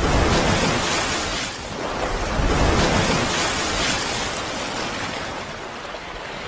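Rushing, surf-like noise sound effect from an animated outro, swelling and easing in waves and slowly fading toward the end.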